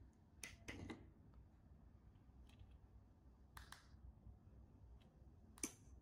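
A few small, sharp clicks against near silence: the learning button on a 12 V 433 MHz relay receiver board pressed, the key-fob remote's button pressed, and the board's relay switching as it turns the LED lamp on. Two clicks come close together about half a second in, another a few seconds later, and the sharpest near the end.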